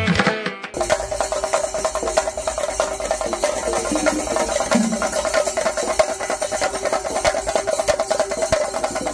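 A percussion ensemble drumming fast and densely, with a steady held tone over the drums. It starts under a second in, cutting in after the tail of tuneful music.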